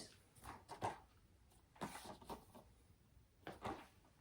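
Faint handling noise of plastic DVD cases being picked up and set down: a few soft, short knocks and rustles with quiet between them.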